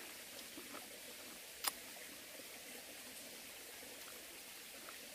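Steady, faint hiss of a mountain valley stream, with one sharp click about a second and a half in and a few faint ticks.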